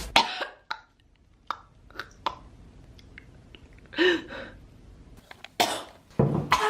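A woman coughing and clearing her throat in short separate bursts, with quiet gaps between: one at the start, a short throaty sound about four seconds in, and a sharp cough about five and a half seconds in, followed by more near the end.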